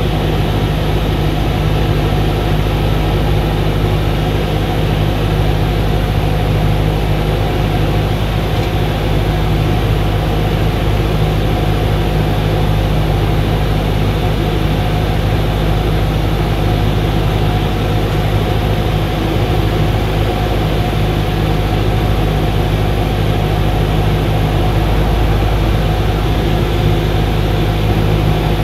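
Cessna 172's piston engine and propeller running steadily, a constant low drone heard from inside the cockpit, on the approach to land.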